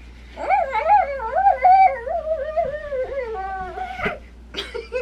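A young child's high voice making one long, wavering, sing-song whine of about three and a half seconds, followed by a couple of short vocal sounds near the end.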